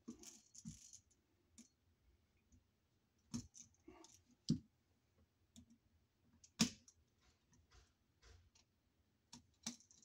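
Irregular small clicks and taps of a hand tool and wires against a wall outlet and its metal box as the outlet is wired, with a few sharper knocks spread through.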